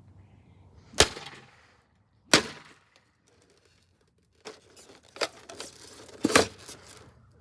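A mini fridge being hit hard to get its door off: two loud blows about a second and a half apart, then several lighter knocks and another loud hit near the end.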